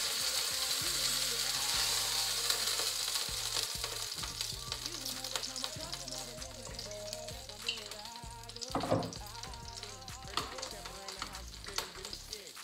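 Chicken breast fillets sizzling as they sear in a hot pot, the hiss strongest at first and slowly dying down, with background rap music playing over it.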